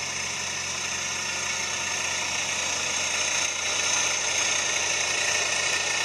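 Mazda MPV (4WD) idling steadily with several high whining tones over the hum, a little louder about halfway through. The owner finds it noisier than usual, an abnormal noise that a service station traces to an oil leak at the transfer case.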